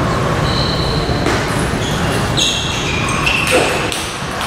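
Table tennis ball hits on paddles and table, several sharp clicks about a second apart with short high ringing pings, over the steady noise of a large hall.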